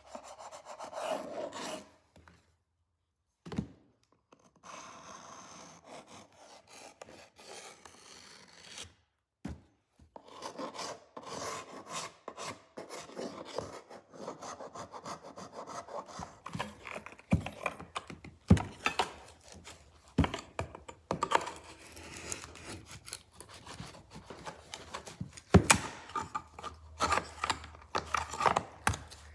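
Steel blade scraping old glue off wooden joint surfaces in repeated short strokes, with sharp knocks and clicks of the wood and tool in between.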